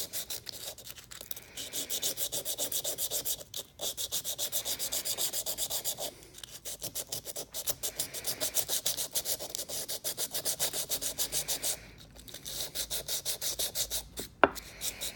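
Wet 120-grit wet-and-dry paper scrubbed back and forth in quick, even strokes, about six a second, against a hardened 440C stainless steel juicer cutter, abrading tannin build-up from the bottom of its teeth. The strokes pause briefly twice, and a sharp click sounds near the end.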